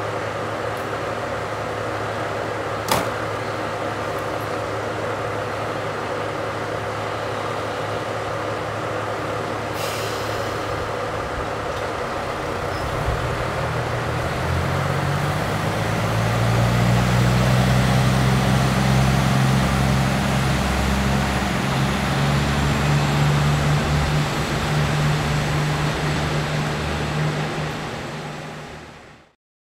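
Diesel railcar's engine idling with a steady drone, with one sharp click about three seconds in. About halfway through, the engine is throttled up: its note rises in pitch and grows louder, and it keeps running hard until the sound cuts off near the end.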